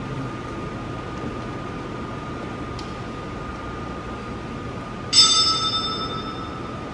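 A single strike on a small metal bell about five seconds in, ringing with several bright overtones and fading over about a second and a half, over a faint steady high hum.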